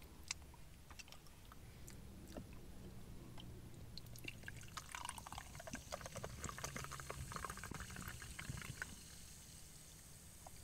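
Orange Fanta poured from a can into a glass, faintly splashing and fizzing, starting a few seconds in and easing off near the end.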